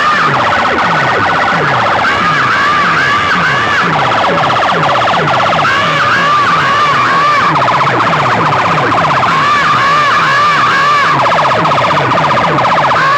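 Electronic siren-effect DJ track: a warbling siren alternates every couple of seconds with a fast buzzing alarm pulse, over a deep bass sweep that falls and repeats about three times a second.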